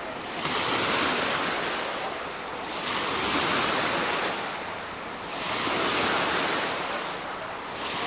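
Wave pool water washing and splashing in the shallows, a steady hiss that swells and fades in surges about every two and a half seconds.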